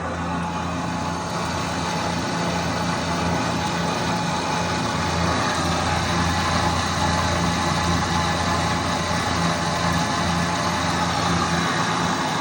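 Bridgeport Interact CNC milling machine running steadily, its spindle humming as it takes a slow, deep cut at about 3 inches per minute and half an inch deep.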